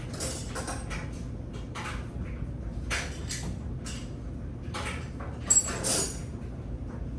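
Metal hand tools clinking and knocking in irregular handling noise, as when picking out and fitting a 13 mm wrench, with the sharpest knock about five and a half seconds in.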